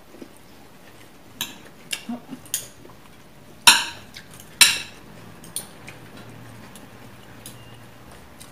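Metal spoons and forks clinking and scraping against plates during a meal: a scattering of short clinks, the two loudest close together near the middle.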